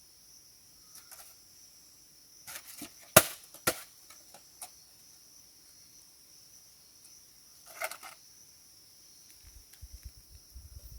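Two sharp wooden knocks about half a second apart, among a few lighter taps, then a short clatter a few seconds later, over a steady high chirring of insects.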